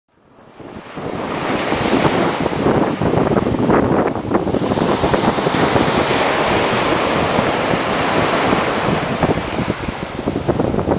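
Sea waves breaking and washing up a sandy beach, a steady rushing surf, with wind buffeting the microphone. The sound fades in over the first second.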